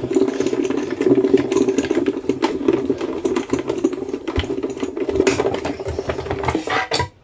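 Die-cutting machine running a plate-and-die sandwich back through its rollers for a second pass, a steady grinding drone with fast, fine clicking. It stops abruptly near the end.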